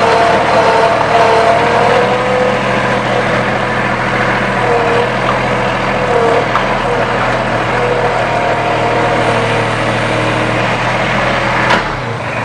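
Bobcat 543 skid loader engine running steadily on its newly replaced fuel pump as the loader drives up, with a whine that wavers slightly in pitch over the engine noise. It eases a little near the end.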